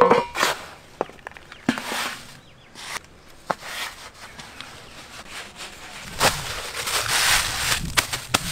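Coarse salt and a foil-wrapped parcel being handled on a metal sheet: a sharp knock at the start, then scattered crunches and taps as salt is packed down by hand, and a longer rustling crinkle from about six seconds in as hands press on the aluminium foil.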